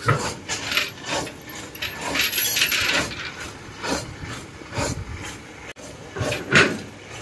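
Irregular scrapes, rubs and knocks from workers handling the mooring ropes and steel loading ramp of a barge against a canal bank. There is a longer rasping scrape about two to three seconds in and a sharp knock near the end.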